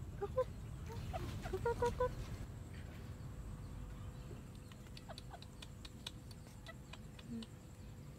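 A chicken clucking softly a few times in the first two seconds, then a few faint ticks as it pecks at the dirt.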